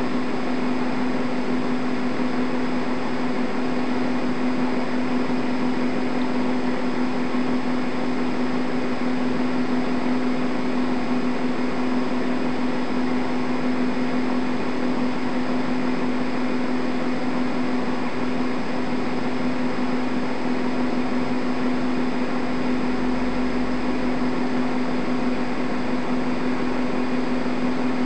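Steady mechanical hum and whir with a strong low tone, unchanging throughout.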